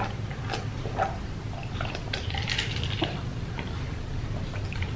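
Ice cubes clinking and shifting against the sides of a plastic jug of iced tea as it is tipped up to drink and set back, in a scatter of short irregular clicks.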